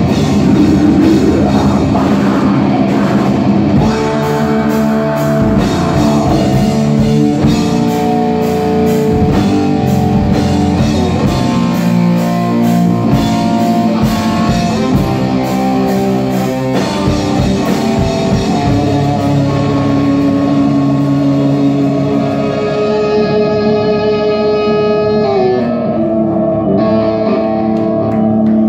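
Black metal band played live: distorted electric guitars and bass over drumming. About two-thirds of the way through, the drums stop and held guitar notes ring on.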